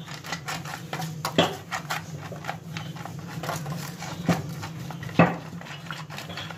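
Silicone pastry brush dabbing and stroking oil over the inside of a thin aluminium foil tray, the foil crinkling and ticking under each stroke, with three louder crackles as the tray is pushed about. A steady low hum runs underneath.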